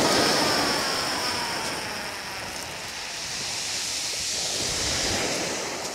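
Fishing reel paying out line during a beach cast: a thin whining tone that falls steadily in pitch over the first three seconds as the cast slows in flight, over a steady hiss of surf and wind.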